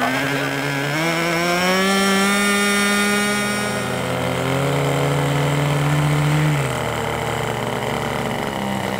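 Small engine running. Its pitch steps up about a second in, eases down around four seconds, and drops again a little past six seconds as the throttle changes.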